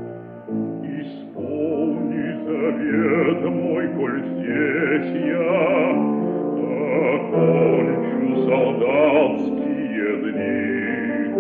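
Bass voice singing an art song with wide vibrato over piano accompaniment, in an old recording with a narrow, dull top end.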